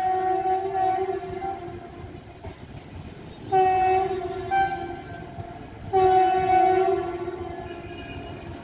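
Locomotive air horn of an approaching train sounding in long blasts: one fading out near the start, then two more about a third and two-thirds of the way in. Each blast starts loud and tails off.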